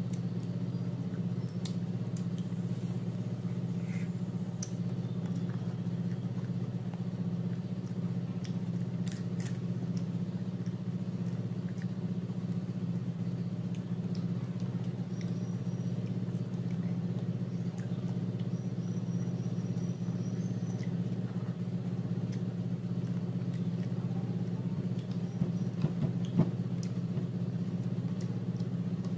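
A steady low hum under quiet eating sounds: fingers picking fish off a plate and chewing, with a few sharper clicks about nine seconds in and again near the end.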